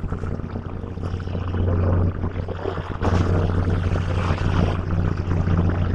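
Steady low drone and rumble of a Philippine National Railways commuter train, heard inside the passenger coach, growing louder about three seconds in.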